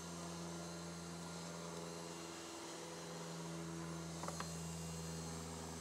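Handheld hot air gun running steadily with a low hum and hiss, heating the bitumen of a self-adhesive gas membrane patch to activate it. A couple of faint ticks about four seconds in.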